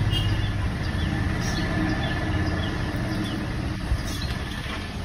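A steady low mechanical hum, with faint short high chirps repeating over it.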